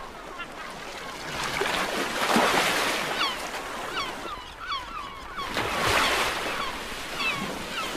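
Water surging and splashing as humpback whales lunge-feed at the surface, swelling twice, with seabirds giving many short, repeated calls from about two seconds in.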